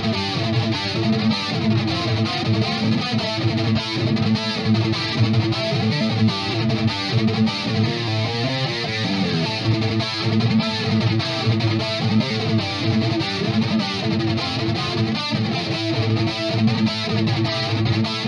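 Electric guitar riffing through a Crate GT-200 amplifier head with its chorus effect on.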